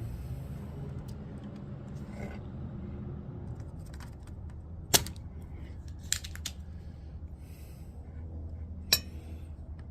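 A few sharp clicks and small metallic clinks from handling desoldering tools and switch parts on the bench, two louder ones about five and nine seconds in, over a low steady hum.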